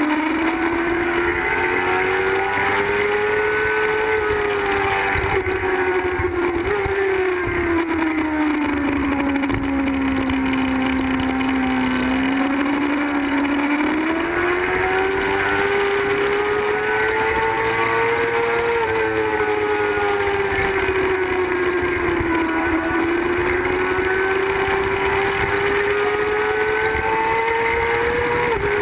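Sport bike's high-revving engine at track speed, heard on board: its pitch rises and falls with the throttle, sagging lowest about halfway through, then drops sharply near the end as it shifts up and pulls again.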